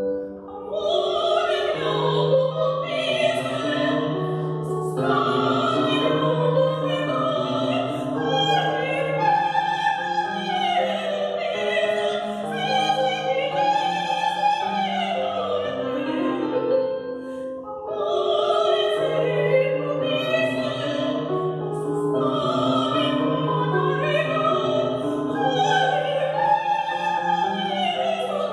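A woman singing in an operatic classical style, holding and gliding between long notes, accompanied by an electric keyboard. There are two short breaks between phrases, just after the start and about two-thirds of the way through.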